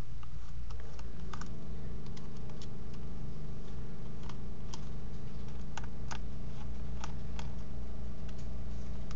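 Light, irregular clicks and ticks of a small screwdriver working the screws out of a gas detector's plastic back case, with the case knocking lightly in the hand. A steady low hum runs underneath.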